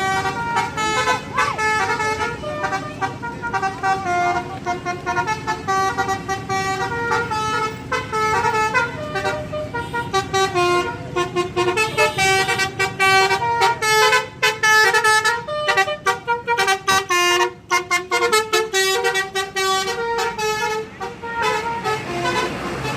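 A bus's telolet basuri musical air horn playing a fast tune. Several horn tones sound together and jump from note to note in quick, chopped blasts.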